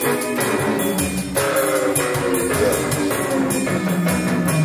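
Portable electronic keyboard being played: a melody in single notes over a steady drum beat.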